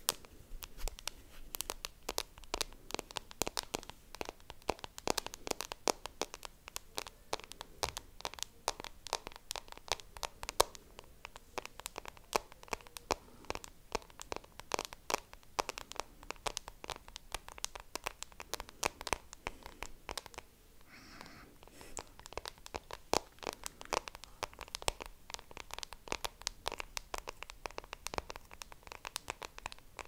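Close-miked ASMR mouth sounds: rapid, irregular wet lip and tongue clicks and smacks with sticky lip gloss on the lips. They pause briefly near two-thirds of the way through, where only a faint breath is heard.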